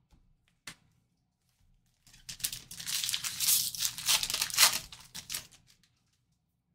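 A trading-card pack wrapper being torn open and crinkled, a dense crackling rustle lasting about four seconds after a single click.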